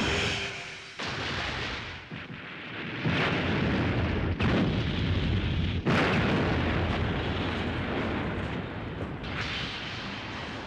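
Explosion sound effect of a jet aircraft blowing up: a chain of blasts, with sudden new ones about a second in and around four and a half and six seconds in. A continuous rumble runs between them and slowly dies down near the end.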